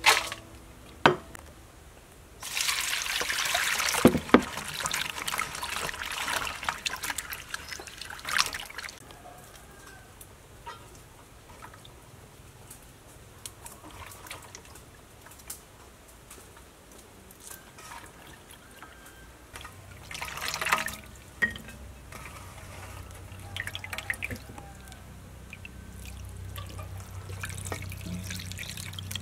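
Water poured and splashing while food is prepared, loudest for a few seconds about three seconds in, with sharp clinks of ceramic plates on a stainless steel bowl near the start. Quieter trickling and handling sounds follow, and near the end water is poured from a jug onto a plate.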